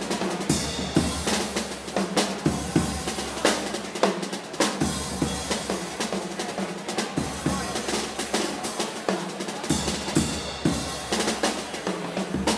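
Jazz drum kit played hard and busy: rapid snare strokes and bass drum kicks under a constant wash of cymbals.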